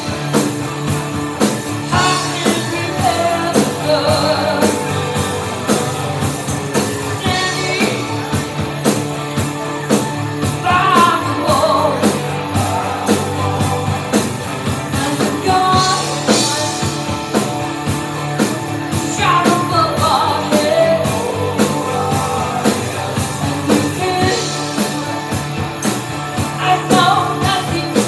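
A live rock band playing: a woman sings into a microphone over electric guitar and a drum kit keeping a steady beat.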